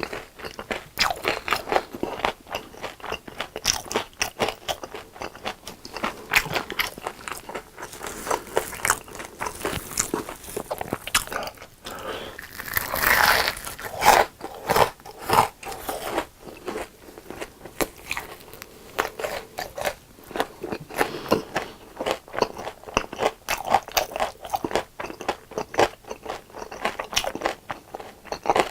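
Close-miked biting and chewing of crunchy deep-fried food, a continuous run of crisp crunches, with a louder burst of crunching about halfway through.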